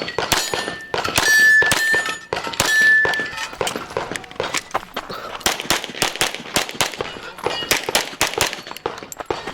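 Glock 17 Gen5 MOS 9mm pistol firing strings of rapid shots throughout. In the first three seconds or so, steel targets ring out several times as they are hit.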